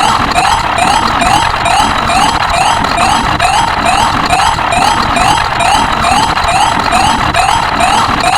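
Siren sound effect in fast yelp mode: a quick rising whoop repeating about three times a second over a steady rushing noise.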